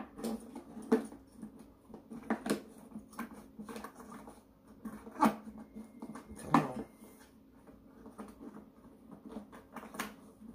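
Plastic headlight housing and wire being handled as a wire is threaded through the back of the housing: irregular clicks, taps and rustles, with a few sharper knocks of plastic scattered through.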